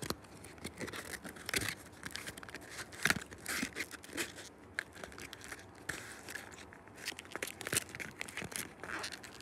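Foil booster packs crinkling and rustling against each other and the cardboard box as fingers work at them, in irregular crackles and short clicks. The packs are jammed tight in the box and will not come out.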